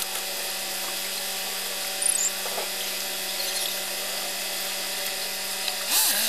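Fast-forwarded audio: a running vehicle engine sped up into a steady, high, drill-like whine, with a few faint clicks and a louder swell with a brief pitch sweep near the end.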